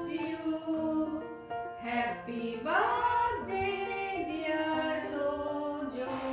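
Music with singing: held sung notes over an accompaniment.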